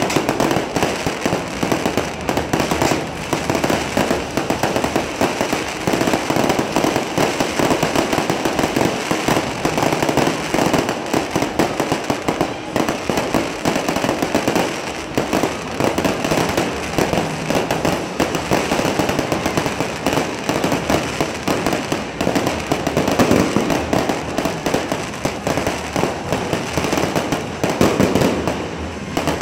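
A fireworks display going off at close range: a dense, continuous stream of bangs and crackling, with no let-up.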